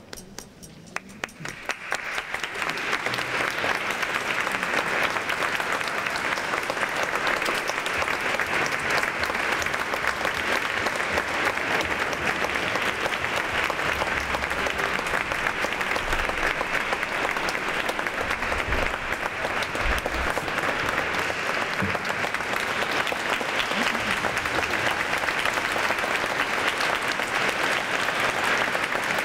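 Audience applauding: a few scattered claps swell into full, steady applause within the first two seconds.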